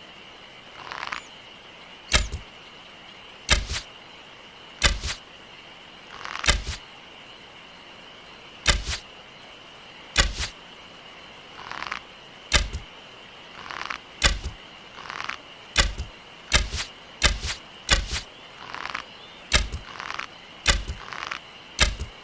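Bow-and-arrow sound effects: a series of arrow shots, each a short rushing whoosh or a sharp hit, more than a dozen in all, coming faster after the middle. A steady high tone sits beneath them.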